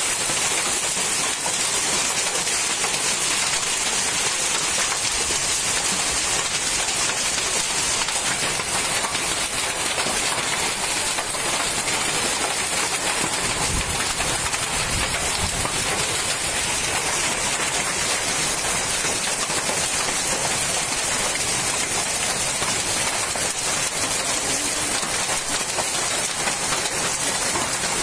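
Heavy rain mixed with hail falling steadily on open ground, an even, dense hiss. A brief low rumble swells in about halfway through.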